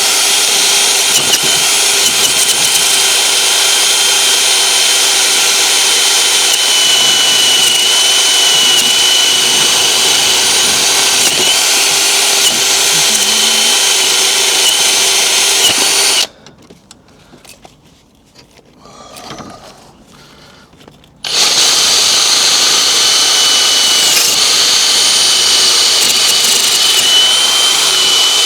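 Handheld power tool running at a steady high speed with a whine, cleaning old exhaust paste and deposits off the exhaust joint's mating face so the new gasket can seal. It stops for about five seconds a little past the middle, then starts up again.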